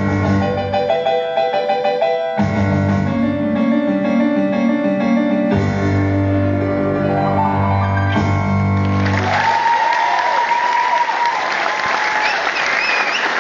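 Keyboard played live, sustained bass notes under a melody and chords, which stops about nine seconds in. The audience then breaks into loud applause and cheering.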